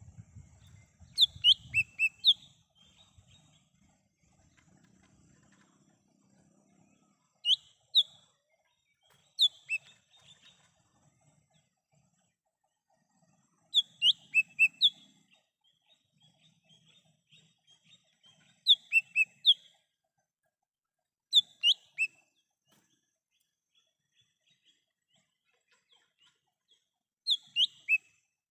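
Leafbird (cucak hijau mini) calling: short phrases of two to four sharp, sliding whistled notes, repeated about seven times with pauses of a few seconds between them.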